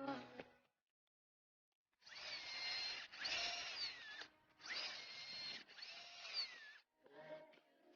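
Faint on-and-off whirring of a power tool, like a drill, in bursts of one to two seconds after about two seconds of near silence.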